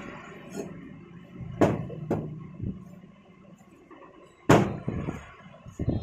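A large curved fish knife chopping through parrot-fish meat into a wooden chopping block: a few sharp, separate chops, two close together, then a louder one a couple of seconds later.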